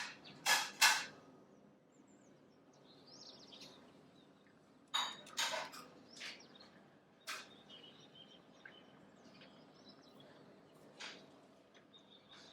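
Faint bird chirps over a low background hiss, broken by several short sharp taps: two right at the start, a cluster around five to six seconds in, and single ones near seven and eleven seconds.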